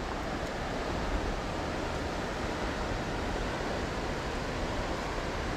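Steady rush of a flowing creek, with no distinct events.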